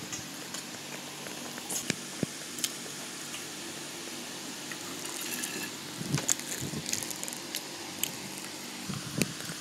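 Steady background hiss with scattered small clicks and a few soft knocks, like handling on a table set with dishes.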